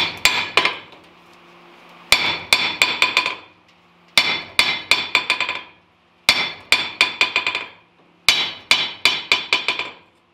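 Ball-peen hammer striking a freshly weld-surfaced steel anvil face in quick runs of about six blows, one run every two seconds, each blow ringing with a clear metallic tone. The face is still dead, which the smith puts down to weld beads not yet pounded out.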